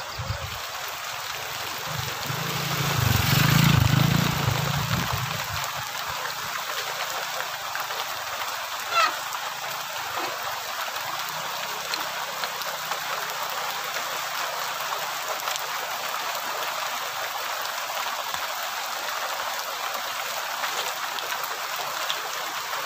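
Steady hiss of light rain falling. A louder low rumble swells and fades about three to four seconds in, and there is one short high chirp at about nine seconds.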